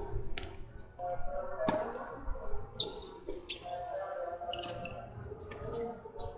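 Tennis ball struck by rackets and bouncing on a hard court during a doubles rally: a run of sharp pops spread through the few seconds.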